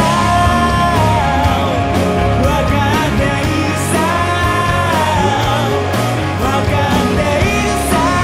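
Rock song with a singer holding long notes over a full band.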